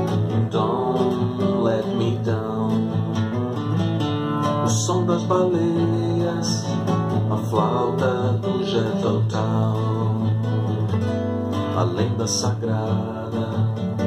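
Nylon-string classical guitar playing a chord accompaniment, the chords changing every few seconds.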